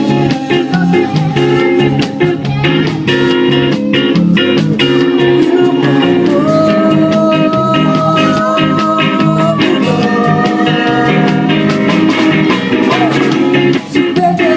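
Live band music: guitar and percussion playing, with a long held melody note through the middle.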